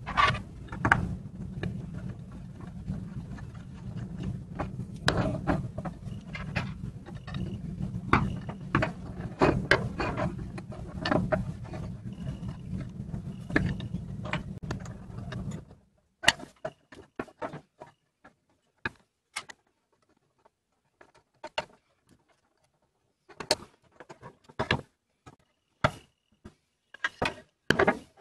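Parts of an antique wooden plow plane clicking and knocking as they are handled and fitted onto its threaded wooden arms on a wooden bench. Scattered sharp clicks, over a steady low hum that cuts off about halfway through.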